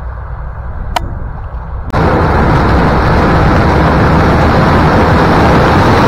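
Low rumble, then about two seconds in a sudden jump to a loud, dense roar: a John Deere combine harvester cutting corn right beside the microphone, its corn head and engine running.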